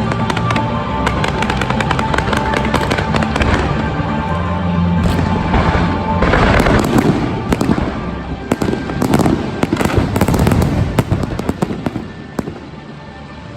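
Fireworks display: dense crackling and popping shells over loud music, with heavier bursts and crackle from about six seconds in, thinning out near the end.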